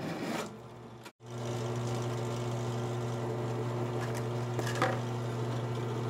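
Benchtop drill press motor running with a steady hum, which starts after a momentary dropout about a second in. A short tick about five seconds in.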